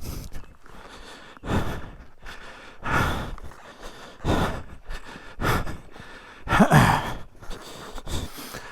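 A man breathing hard and catching his breath after exertion: heavy exhales about every second and a half, one of them a voiced, falling sigh about two-thirds of the way through.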